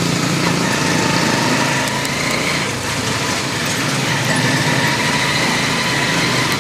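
The small motorcycle engine of a tricycle running steadily as it rides along, its note dipping slightly about three seconds in.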